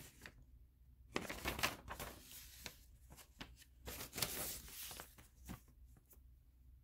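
Sheets of paper rustling and crinkling as they are handled and folded, in two bouts: one starting about a second in, another about four seconds in.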